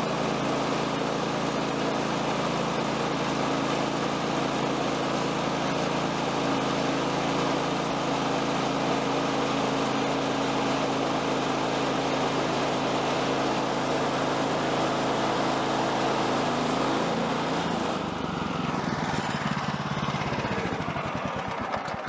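Woodland Mills HM126 portable bandsaw mill running, its gas engine holding a steady note under load as the band blade is pushed through a yellow pine timber. About eighteen seconds in, the engine note drops and wavers.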